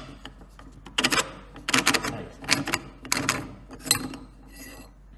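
Seized screw thread on the brass tube of a 1920 Carl Zeiss Stand III microscope creaking as it is forced round by hand: about six short crackling bursts, roughly one every two-thirds of a second, the last one fainter. The thread is jammed with rust.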